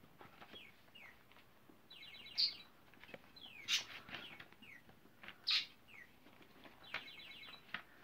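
Paper pages of a thick handmade book being flicked through and turned, with a small bird chirping repeatedly alongside: short falling chirps and a couple of quick trills.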